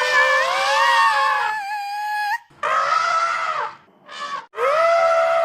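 Elephant trumpeting: a series of harsh, high trumpet calls, one long call of about two and a half seconds followed by a shorter call, a brief blast and another call starting near the end.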